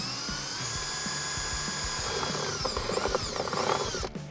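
Handheld power drill spinning up with a rising whine, then dipping and recovering in pitch several times as the bit bores a small hole through plastic console trim. It stops shortly before the end.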